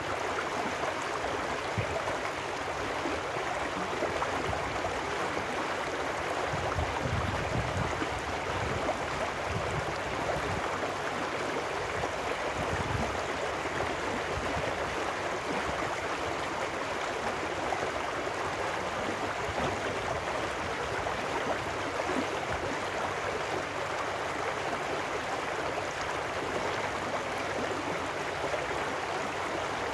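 Shallow trout stream rushing steadily over rocks in a riffle, a constant splashing water noise without let-up.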